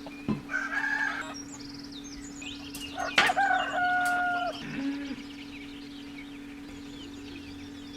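A rooster crows about three seconds in, with chicken calls and small birds chirping, over a steady low hum.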